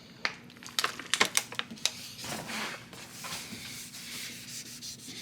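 Hands swapping pads on the headlight restoration kit's applicator: a quick run of sharp clicks and taps over the first two seconds, then rustling and softer taps.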